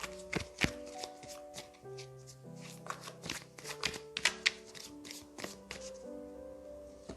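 A deck of tarot cards being shuffled and handled, a quick run of sharp card snaps and taps that thins out about six seconds in, over soft background piano music.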